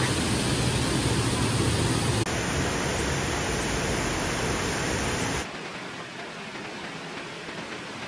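Steady rushing water of a waterfall, an even hiss with no separate events. It drops noticeably quieter about five and a half seconds in.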